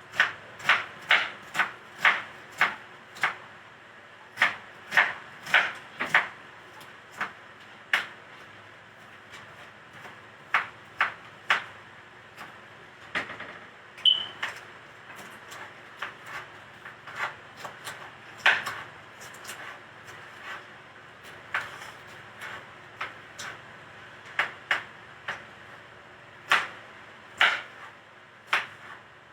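Close-up crunching of crispy food being chewed: sharp crunches in quick runs of a few a second, thinning out after the first several seconds, with a brief high squeak about halfway.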